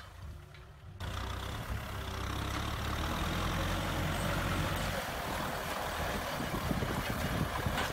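Kubota M6040SU tractor's diesel engine running steadily under load as it pulls a disc harrow through dry, cloddy soil, with the noise of the discs working the ground. The sound gets suddenly louder and closer about a second in.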